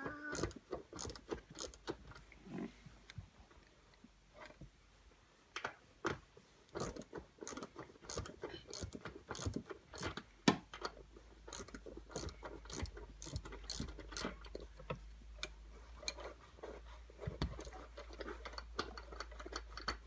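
Ratchet with a 17 mm socket clicking in runs of rapid clicks as the seatbelt's bottom anchor bolt is unscrewed, with one louder knock about halfway through.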